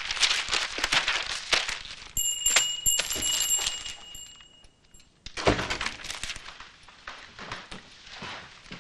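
Newspaper pages rustling as they are folded, then a bell ringing steadily for about three seconds with several strikes. A door-like thump follows just after the ringing stops, then softer shuffling.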